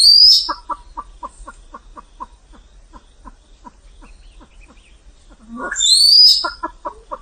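Silver pheasant calling: a loud, shrill call with a high rising whistle at the start and again about six seconds in, and between them a long run of short, rapid clucks, about four or five a second, slowing and fading.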